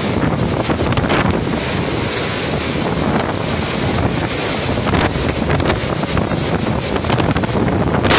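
Typhoon-force wind and driving rain blasting the phone's microphone: a loud, unbroken roar of wind buffeting, with sharp crackles here and there.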